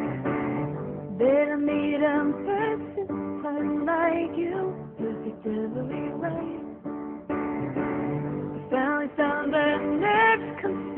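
Music: a woman singing a pop ballad with a wavering, held voice over a sustained instrumental accompaniment.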